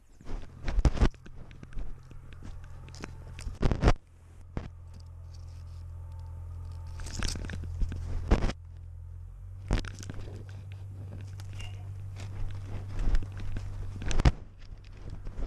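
Scattered crunches, scrapes and clicks close to a cat-mounted camera as the cat pushes through dry twigs and debris in a cramped dark space, over a steady low hum.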